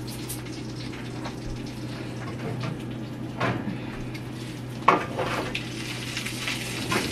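Cookware being handled at the stove: a few scattered clinks and knocks of pans and utensils, over a steady low hum.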